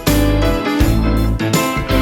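Background music: a keyboard with guitar playing chords, a new chord struck about every half second.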